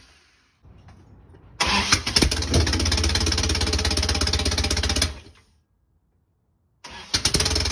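Rebuilt Toyota 22R four-cylinder engine being cranked over by the starter in two bursts of a few seconds each, with a fast, even pulsing. The engine is cranking but has not yet started.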